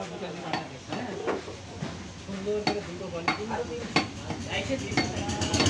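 Butcher's knife slicing and scraping hide off a cow's head, with irregular sharp clicks and taps of the steel blade. Faint voices in the background.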